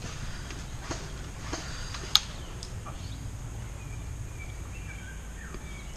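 A few sharp, scattered cracks of airsoft guns firing, one much louder than the rest about two seconds in, over a low steady rumble. Faint bird chirps come in the middle.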